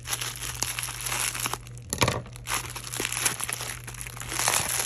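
Bubble-wrap packaging crinkling and crackling as it is handled and pulled open, in irregular rustles with a sharp crackle about two seconds in.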